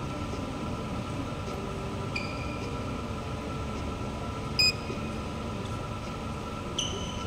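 Steady hum of an indoor sports hall's ventilation, with three short high squeaks of court shoes on the synthetic floor. The first comes about two seconds in, the loudest and sharpest about halfway through, and the last near the end.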